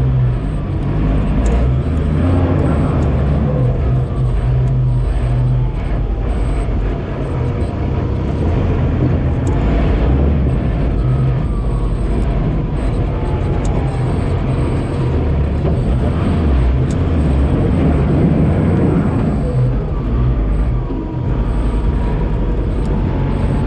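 GAZ-69-based 4x4 trial special's engine running under load over rough dirt, its note rising and falling with the throttle, with occasional knocks from the vehicle.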